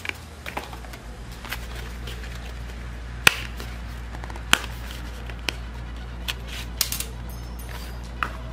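Hands handling a phone box's cardboard and paper inserts: scattered light clicks, taps and rustles as a SIM ejector pin is worked out of its paper card, with two sharper clicks a few seconds in. A steady low hum runs underneath.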